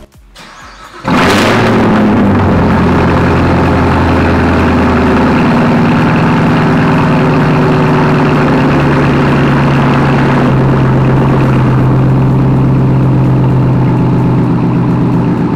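2019 Chevrolet Camaro ZL1 1LE's supercharged 6.2-litre LT4 V8 cold-starting through a newly fitted AWE Track Edition exhaust: it fires about a second in with a loud flare of revs, then settles into a fast, aggressive-sounding idle that drops in pitch in two steps.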